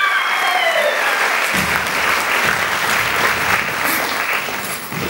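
Audience applauding. In the first second a high whinny from the life-size horse puppet, voiced by its puppeteers, slides down in pitch and fades, and from about a second and a half in there are low irregular thuds.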